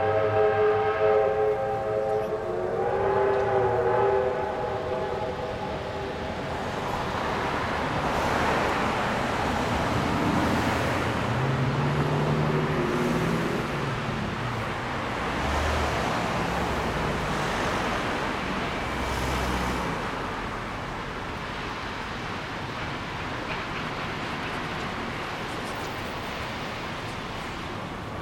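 Victorian Railways R class Hudson steam locomotives: a multi-note steam whistle sounds two blasts in the first few seconds, then the locomotives work past with a loud, steady rush of exhaust and train noise that swells and slowly fades.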